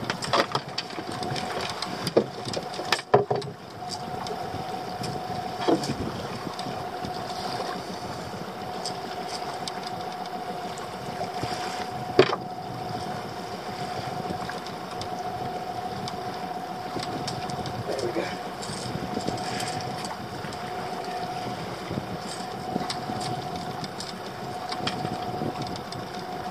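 Small boat's engine ticking over with a steady hum, with wind and water around the hull. Scattered sharp knocks and clatters, several in the first few seconds and a couple later, come from a freshly netted sea bass being handled in a landing net on the boat's deck.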